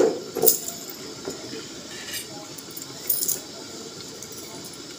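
A handful of short metallic clinks from cookware, spaced irregularly over the first three and a half seconds, the first the loudest, over a faint steady hiss.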